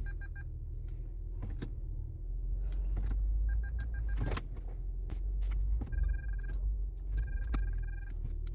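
Nissan Altima engine idling with a steady low rumble, its CVT now running without the whine that a bent, oil-starved transmission strainer had caused. A few sharp metallic clicks and clinks sound over it, and a faint high steady tone comes and goes.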